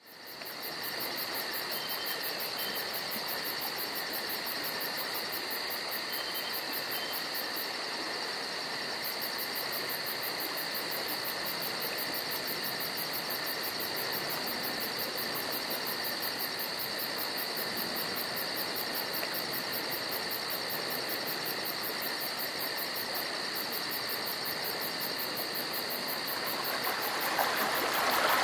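Steady insect chorus: a high, even chirring with a fast regular pulse. Near the end, the rush of running stream water comes up.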